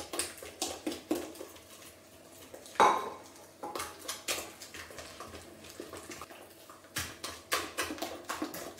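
A wire whisk clinking and scraping against a glass mixing bowl in quick, irregular strokes, stirring melted butter into beaten eggs and sugar for a honey-cake dough. One louder knock about three seconds in.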